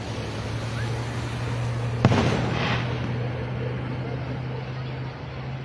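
Aerial fireworks going off, with one sharp, loud bang about two seconds in followed by a short echoing rumble.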